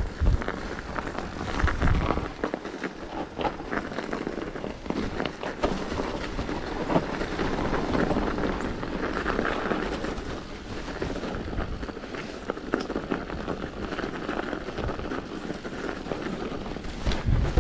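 Mountain bike on Schwalbe Ice Spiker studded tyres rolling over a snowy trail: a steady rattling clatter of tyres and bike, with a few low thumps at the start, about two seconds in and near the end.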